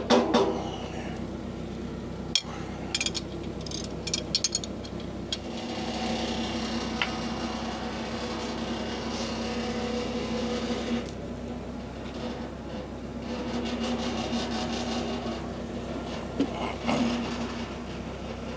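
Metal knocks and clanks from work fitting a rear axle: a spell of clatter at the start and again near the end, with a steady hum in between.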